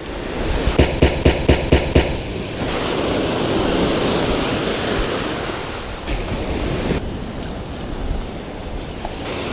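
Ocean surf washing up the shore, swelling to its loudest a few seconds in and then easing, with a quick run of about seven sharp taps in the first two seconds.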